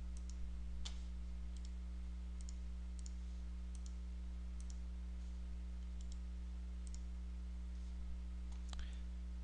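Computer mouse clicks, faint and scattered, over a steady low hum.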